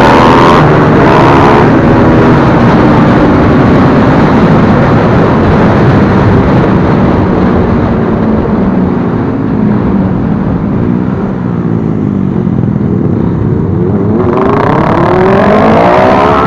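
Sport motorcycle engines running hard and revving on the road. The engine pitch climbs steeply near the start and again over the last couple of seconds, as the bikes accelerate.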